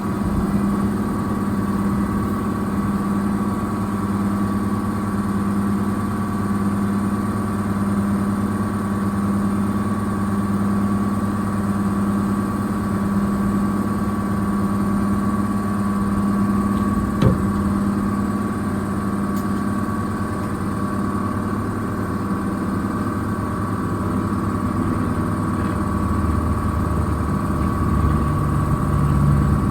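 A small engine or motor running steadily with a constant hum. There is one sharp click about 17 seconds in, and a deeper tone joins near the end.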